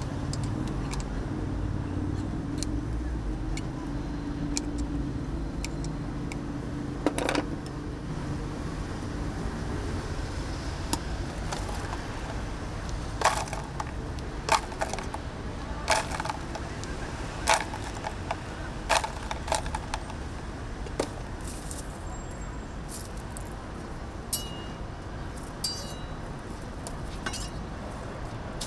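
Sharp clinks and taps of utensils at a crepe griddle, about a dozen spread over ten seconds in the middle, over a steady low rumble of street traffic. A low hum fades out several seconds in.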